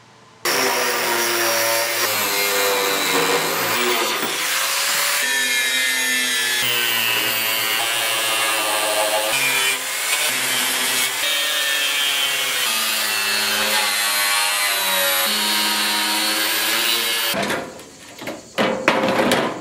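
Handheld angle grinder running against the steel tube frame and floor pan of a vintage Rupp DartKart, its pitch wavering as it loads up against the metal, grinding out rust pits and rough old welds. The grinder stops about 17 seconds in, followed by a few knocks as the frame is shifted.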